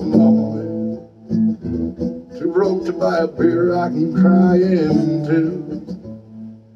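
Acoustic guitar strummed, with a man singing over it; near the end the chord is left ringing and fades.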